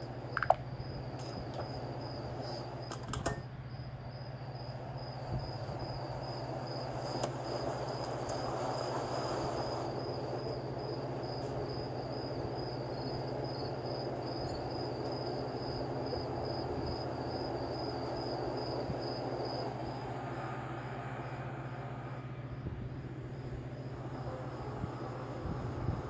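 Crickets chirping in a steady, rapid pulse over a low steady hum, with a few soft clicks about three seconds in.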